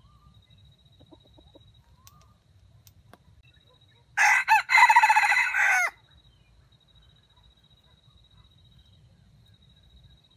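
A wild jungle chicken (red junglefowl) rooster crows once, about four seconds in, for roughly two seconds. The crow starts with a short note that breaks off, then carries on in one long call with a dip near its end: a stuttering crow.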